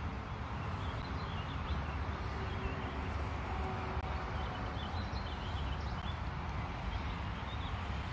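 Outdoor background of a steady low rumble with faint birds chirping now and then.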